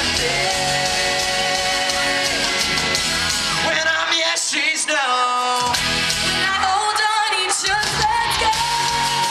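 Live pop-rock band and lead vocal, heard from the audience in a concert amphitheatre, with long held sung notes. The bass drops out briefly twice, about four seconds in and again about seven seconds in.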